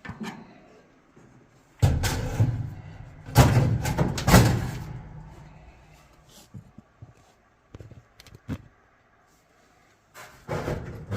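Metal clunks and scraping as a dryer heater assembly is fitted and slid into its mounting bracket: two loud bouts of handling about two and three and a half seconds in, then a few light clicks.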